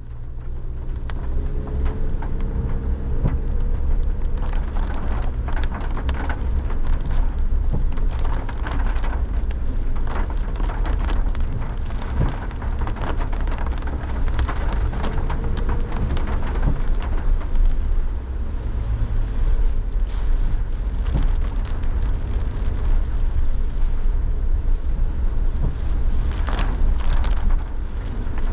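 Heavy rain pouring and drumming on surfaces, dense and steady with many sharp drop hits, over a constant low rumble of wind.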